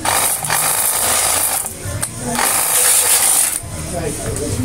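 Battery-powered 24-volt high-pressure washer running, its pump motor whining while the water jet hisses against a motorcycle's front wheel. The spray breaks off briefly twice, about two seconds in and again near four seconds.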